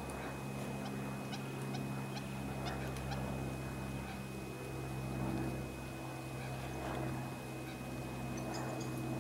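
Collared peccary rooting in dry, stony dirt: scattered small scrapes and clicks of grit, mostly in the first few seconds, over a steady low hum.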